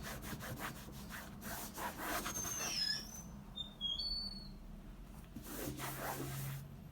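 Cotton cloth rubbing in quick back-and-forth strokes over a Louis Vuitton trunk's leather, drying it after the cleaning cream. The strokes are busiest in the first few seconds and quieter after that, with a few brief high squeaks around the middle.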